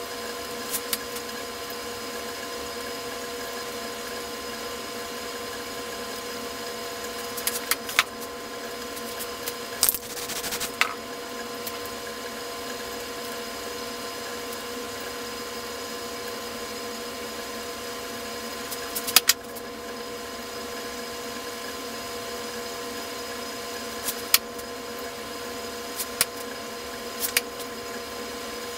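A steady machine-like hum in the room, with a few light taps and clicks as crumpled paper and card are pressed onto the painting board. A brief hiss about ten seconds in.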